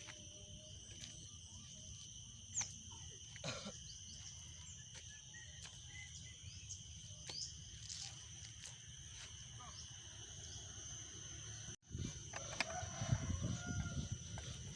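Steady high-pitched chorus of insects droning at several pitches at once, with a few short bird chirps and scattered clicks. After a brief break about twelve seconds in, a louder low rumbling noise joins it.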